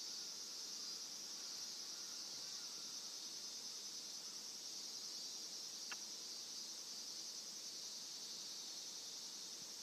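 Cicadas buzzing in a steady, high-pitched chorus, with a single short click about six seconds in.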